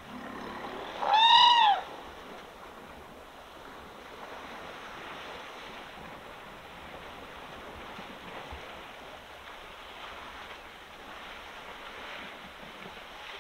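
An African elephant gives one short trumpet about a second in, its pitch rising and then falling. Afterwards only a faint steady outdoor background remains.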